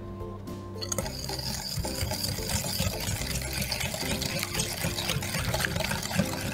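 Wire whisk beating egg yolks and sugar in a glass bowl, starting about a second in: wet stirring with a fast run of clicks from the wires against the glass.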